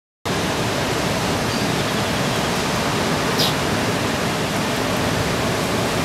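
Steady roar of heavy ocean surf, with large waves breaking. It starts abruptly about a quarter of a second in, and there is one faint tick about three and a half seconds in.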